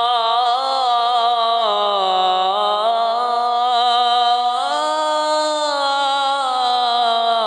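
Melodic Quran recitation: a reciter's voice holding one long, unbroken ornamented note. The pitch climbs about halfway through and then slowly falls.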